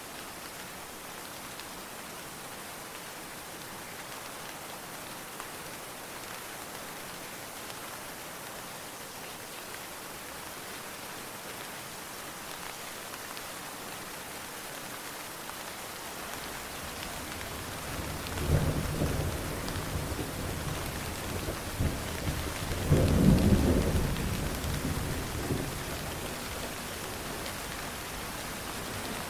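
Steady rain, with a thunderclap rumbling in a little over halfway through, peaking twice and then rolling away.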